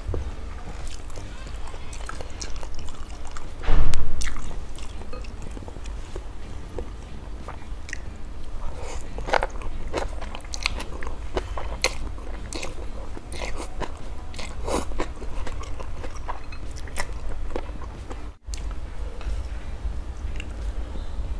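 Close-up eating sounds: instant noodles being slurped and chewed, with many short wet mouth clicks and a louder slurp about four seconds in. A steady low hum runs underneath, and the sound drops out briefly near the end.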